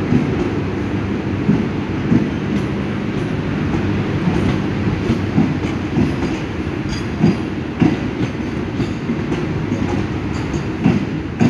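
Passenger train coaches rolling past a station platform: a steady low rumble with irregular sharp clicks as the wheels pass over rail joints.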